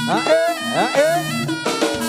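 Live Jaranan band music: drums beating under held pitched tones, with two short rising sliding notes in the first half.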